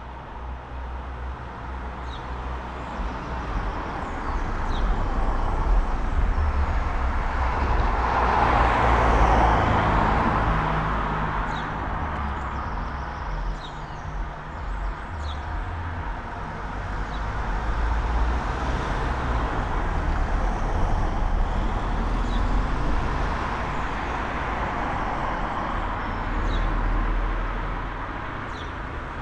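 Road traffic on a town street: vehicles pass one after another, their tyre and engine noise swelling and fading over a steady low rumble. The loudest pass comes about nine seconds in, and another around twenty seconds. Faint bird chirps sound between the passes.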